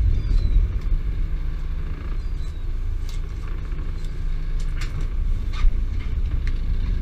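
Small fishing boat's engine and line hauler running with a steady low rumble. A few sharp knocks come from fish and gear being handled on the deck, the loudest about five and a half seconds in.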